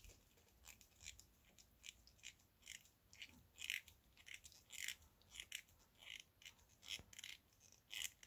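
Small screwdriver turning screws into the parts of a scale model locomotive kit: faint, short scraping squeaks, about two a second, as each screw is worked in turn by turn.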